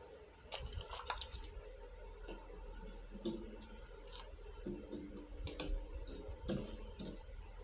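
Miniature toy kitchen pieces being handled, making scattered light clicks and taps: a quick cluster about a second in, then single taps every second or so.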